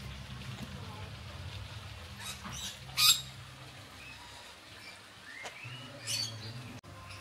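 Birds chirping and calling, with a loud sharp call about three seconds in and another about six seconds in, over a steady low hum.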